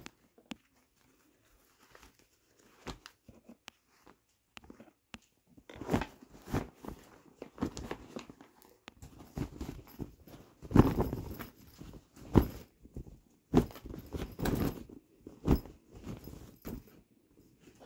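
Rustling of foldable non-woven fabric storage bags with clear plastic panels being unfolded and handled. Nearly silent for the first few seconds, then irregular bursts of rustling, loudest about eleven seconds in.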